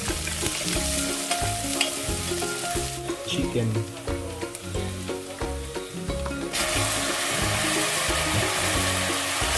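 Garlic and onion frying in hot oil in a pan, a steady sizzle that grows louder and fuller about six and a half seconds in.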